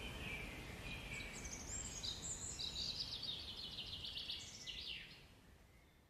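Forest ambience: birds singing in high chirps and trills over a steady low rushing noise, fading out near the end.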